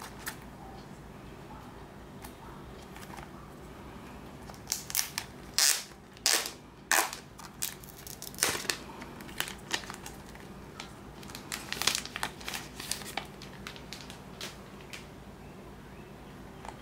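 Plastic shrink-wrap crinkling and crackling as it is handled and peeled off a cardboard Blu-ray box. There are loud bursts of crinkling about five seconds in, then smaller scattered crackles.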